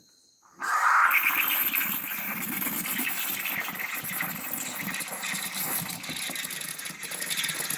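Steam wand of a Morphy Richards espresso and cappuccino machine hissing, opening suddenly about half a second in and then running steadily as the steam knob is turned on.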